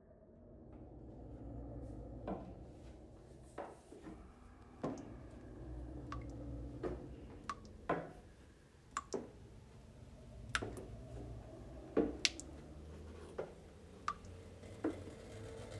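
Faint, sharp clicks at irregular intervals, roughly one a second, over a low steady rumble that swells in during the first couple of seconds.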